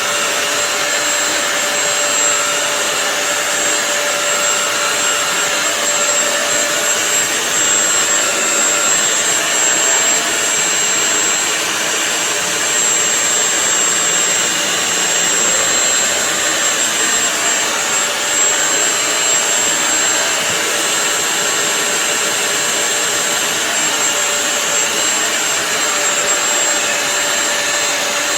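Bissell CrossWave wet-dry floor cleaner running steadily: an even rush of air from its vacuum motor with a steady whine over it.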